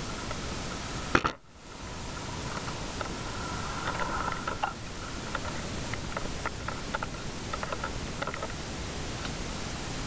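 Metal tools and fittings being handled at a fire hydrant: one sharp knock about a second in, then light metallic clicks and clinks, over a steady hiss.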